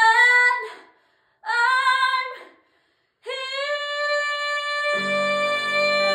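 A young woman singing solo: two short sung phrases with brief silences between them, then one long held note. A lower accompaniment comes in under the held note about five seconds in.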